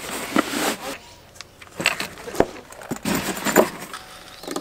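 Packing and handling noise: rustling with a run of short knocks and clicks, loudest about three and a half seconds in, as a small portable power station is lowered into a pull-out drawer.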